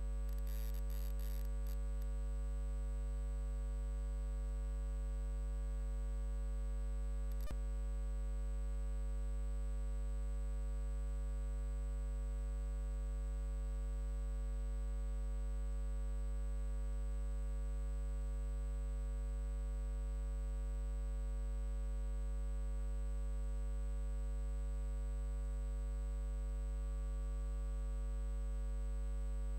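Steady electrical hum, a dead-even low drone with a ladder of higher tones above it. There is some crackle in the first couple of seconds and a single faint click about seven and a half seconds in.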